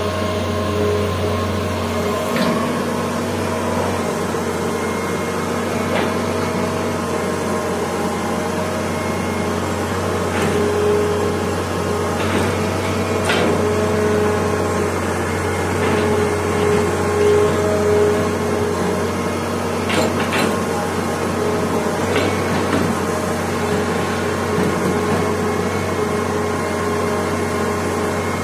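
Old Hitachi EX200 crawler excavator working: its diesel engine runs with a steady low hum and a higher whine that swells now and then, with scattered sharp knocks from the machine as it digs.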